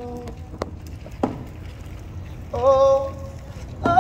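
A man singing slowly in held notes: one rises into a sustained tone about two and a half seconds in, and a louder held note begins near the end, over a low steady street hum. Two short knocks sound in between.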